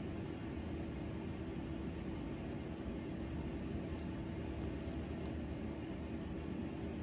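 Steady low hum with a single held tone and a faint hiss, unchanging throughout: background machine or room noise.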